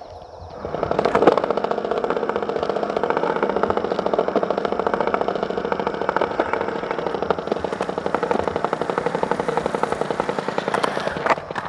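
Skateboard wheels rolling over smooth concrete, with a flat-spotted wheel clunking in a rapid, regular beat that quickens and slows with speed. The rolling gets louder about a second in as the board picks up speed.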